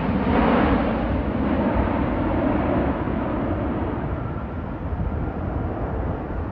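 Jet airliner on approach passing overhead, its engine noise fading steadily as it moves away, with wind buffeting the microphone.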